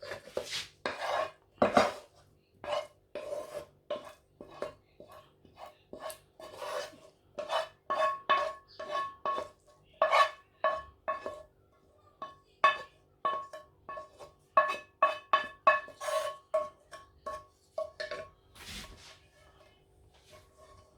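A spoon knocking and clinking against a bowl again and again while stirring, about twice a second through the middle, each knock leaving a short ring of the same pitch.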